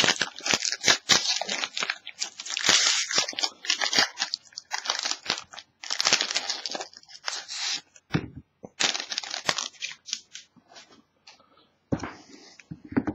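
A trading-card pack's wrapper being torn open and crinkled by hand, in irregular bursts of crackling with short pauses.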